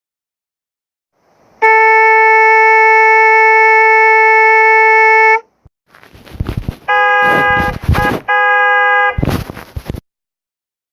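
Car horn held in one steady blast for nearly four seconds, then, after a short gap, loud noisy bursts with two shorter horn blasts at a different pitch, cutting off abruptly.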